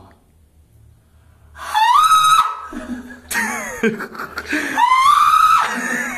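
A man screaming in a very high falsetto to show how high his voice can go. There are two loud screams, each sliding up and then held at the top, about two and five seconds in, with falling shrieks between them.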